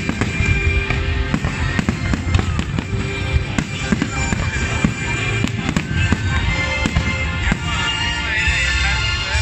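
Aerial fireworks bursting and crackling in quick succession, with the display's music playing throughout.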